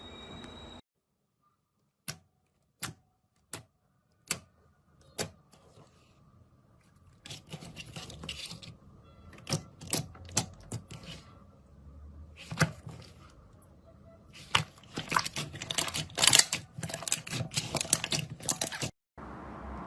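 Slime being handled, giving sharp clicking pops: a few single clicks at first, then faster, denser crisp crackling that grows loudest near the end and stops abruptly.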